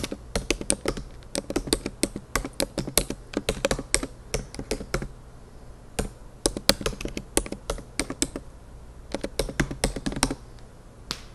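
Typing on a keyboard: quick, irregular runs of key clicks with brief pauses, stopping about a second before the end.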